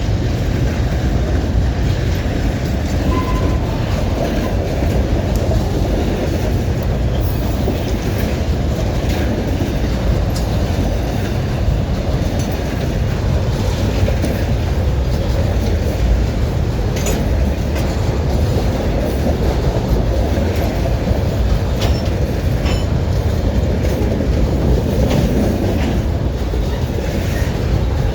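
A train rolling past, with a steady heavy rumble of wheels on the rails and scattered faint clicks.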